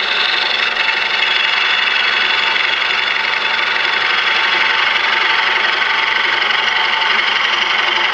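Bowl gouge with a fingernail grind cutting across the top face of a wooden bowl spinning on a wood lathe: a loud, steady cutting sound with no break.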